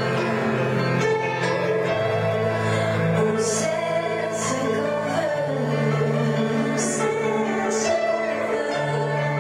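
Live band music: a woman and a man singing a duet into microphones over an electric bass playing long held low notes.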